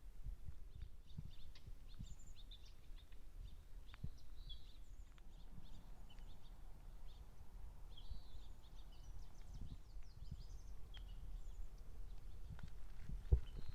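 Small birds chirping and calling in short, scattered notes, over a steady low rumble.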